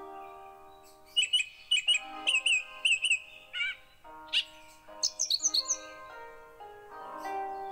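Instrumental background music with sustained notes, with bird chirps over it: a quick run of short, repeated chirps from about a second in, then a few more scattered chirps a little later.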